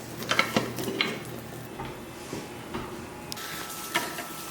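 Kitchen utensil handling: a few short scrapes and taps against cookware. The clearest come just after the start and about four seconds in.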